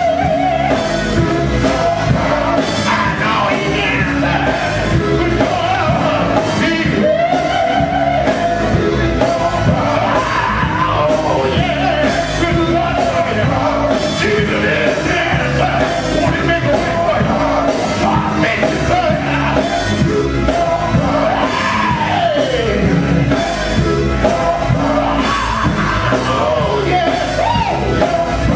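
Live gospel band: a lead singer singing into a microphone over electric guitar, bass guitar and drums.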